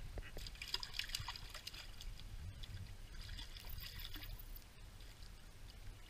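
A hooked trout splashing at the surface of a shallow stream as it is landed by hand, in two spells of splashing: one about a second in and another around three to four seconds.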